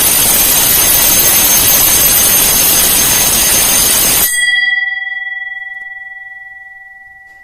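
Electric alarm bell ringing continuously for its programmed 5-second alarm and stopping suddenly about four seconds in. The gong then rings on with a clear tone that fades slowly.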